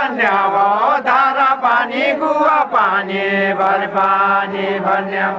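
Men singing a deuda folk song unaccompanied, in a chant-like melody. Gliding, rising and falling phrases give way about halfway through to a long stretch sung on one steady low pitch.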